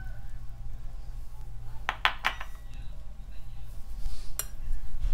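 Metal spoon clinking and scraping against a glass bowl and a steel vessel as thick batter is scooped out, with a cluster of sharp clinks about two seconds in and another near the end, over a steady low hum.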